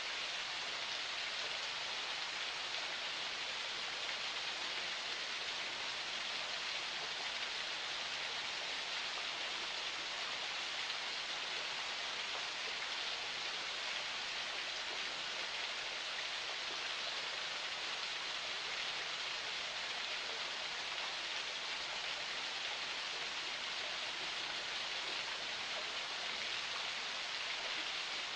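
Water of a small forest spring running: a steady, even rush of flowing water with no breaks or changes.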